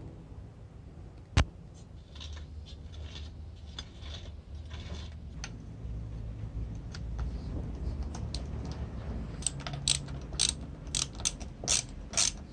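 Power screwdriver driving screws through a pencil sharpener's metal base into wood: the motor runs in spurts, with one sharp click early and a quick run of sharp ratcheting clicks near the end.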